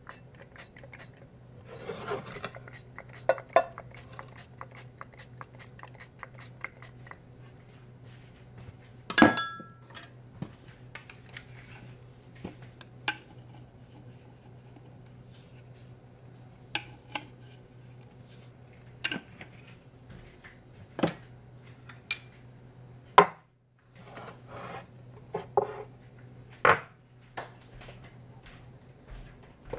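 Kitchen handling sounds from utensils and a nonstick pan on a wooden board: scattered clicks, taps and knocks. There is a loud clank with a brief metallic ring about nine seconds in and another sharp knock a little after twenty-three seconds, all over a steady low hum.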